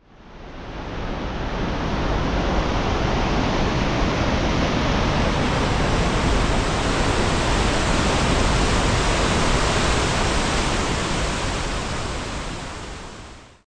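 Loud, steady rush of fast-flowing water, swelling in over the first couple of seconds and fading out near the end.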